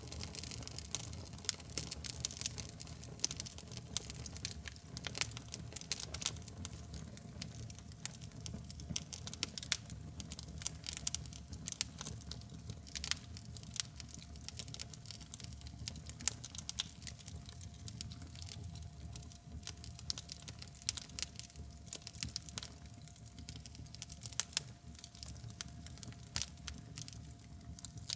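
Fire and burning slag crackling: an unbroken run of irregular sharp pops and snaps over a low rumble, with a faint steady hum underneath.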